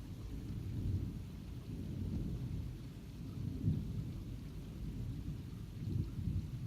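Thunder rumbling low and continuously during a thunderstorm, swelling a little about four seconds in and again near the end.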